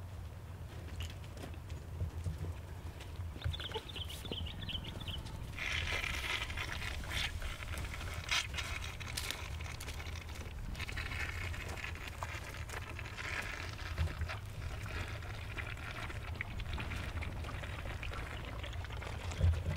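Orphaned baby elephants feeding on milk, with a steady run of liquid sucking, slurping and splashing sounds and scattered knocks and shuffles.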